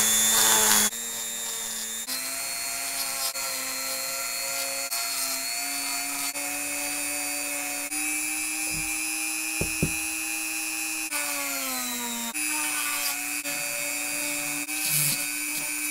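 WEN flex-shaft rotary tool running with a burr bit grinding into dense, dry maple bark: a steady motor whine whose pitch shifts up and down as the bit bites and frees in the wood. It is louder for about the first second, then settles to a steady level.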